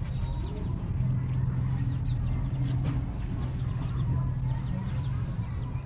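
A steady low hum with faint clucking bird calls over it and a light click a little before the three-second mark.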